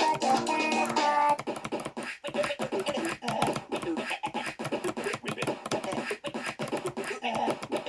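Fast typing on an 8BitDo mechanical keyboard: a dense, irregular run of sharp key clicks. A melodic music track plays over it and stops about a second in.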